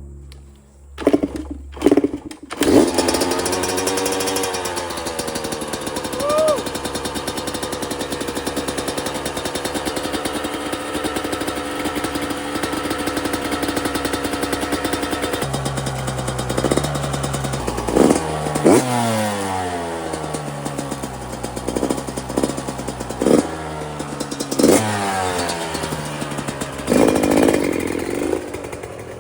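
Yamaha YZ125X's 125cc two-stroke single, on choke and with a freshly rebuilt top end, firing up about two seconds in after a few sharp kicks. It settles into a steady fast idle, then from about halfway through is revved again and again with throttle blips that rise and fall in pitch.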